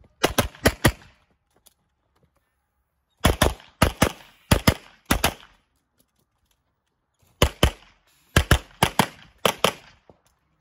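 Rapid pistol fire from a CZ Shadow 2 OR 9mm in three strings of quick shots: a short string right at the start, then two longer strings about three and seven seconds in, with short silent pauses between.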